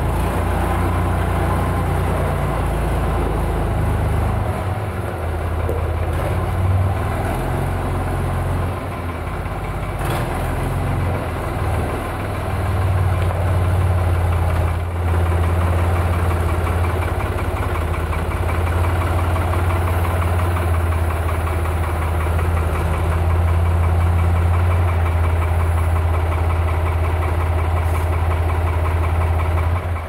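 New Holland tractor's diesel engine running while its front loader carries and sets down logs: a steady low drone that wavers and dips a little in the first dozen seconds, then holds steady.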